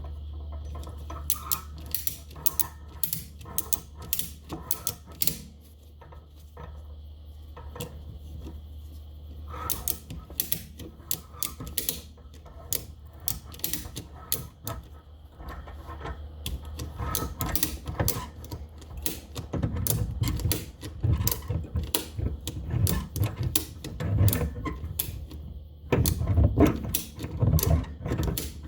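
A ratchet clicking in repeated runs of quick strokes, with heavier dull knocks mixed in during the latter part.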